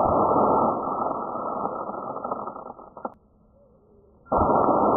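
Daisy Red Ryder BB gun firing: two sudden shots about four seconds apart. Each is followed by a couple of seconds of mechanical rattling.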